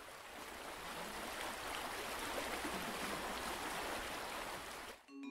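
Steady rushing noise, like running water, that swells in over the first second and stops shortly before the end.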